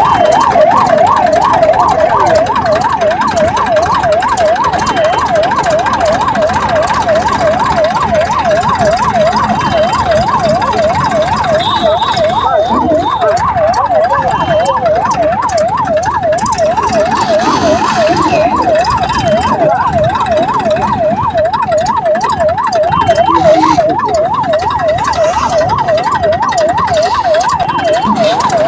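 Electronic siren in a fast yelp, its pitch swinging up and down about three times a second without a break, over a steady noisy background.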